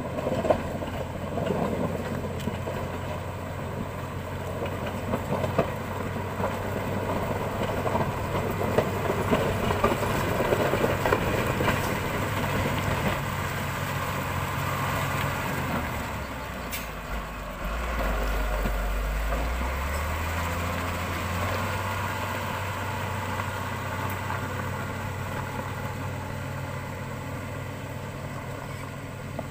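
Caterpillar 120H motor grader's diesel engine running steadily under load while it works the road, with crunching and crackling of loose stone and soil under the blade and tyres, strongest in the first half. About halfway through the engine note drops into a deeper rumble for a few seconds before settling back to a steady run.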